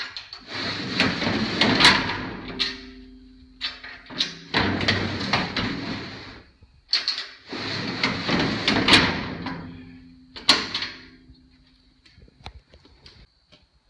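Quarter-inch steel plate sliding door of an in-ground storm shelter being slid back and forth along its steel tracks on newly welded guide clips: three long metal-on-metal scraping runs, then a sharp clank as it shuts, followed by a few light ticks.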